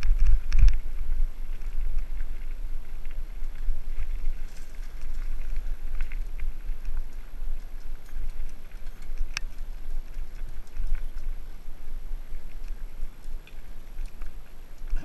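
Mountain bike descending a rough dirt trail: a steady low rumble of wind and ground vibration on the microphone, with the bike rattling and occasional sharp knocks, the loudest in the first second and one about nine seconds in.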